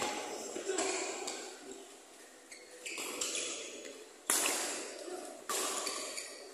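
Badminton rally: rackets strike the shuttlecock about six times, each a sharp ping that echoes in a large hall. The two loudest hits come in the second half.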